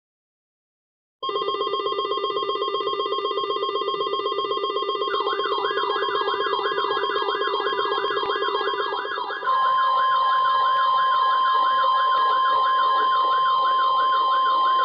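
Weather radios going off together in alert, starting about a second in with a steady electronic beeping buzz. About five seconds in, a fast up-and-down electronic siren wail joins. About nine and a half seconds in, the steady 1050 Hz NOAA Weather Radio warning alarm tone starts, which marks a warning broadcast such as a severe thunderstorm warning.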